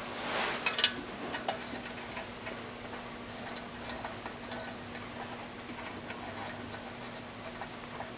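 Small metal clicks and ticks of nuts and hand tools worked on the camshaft bearing-cap studs of a BMW cylinder head: two sharp clicks within the first second, then faint scattered ticking.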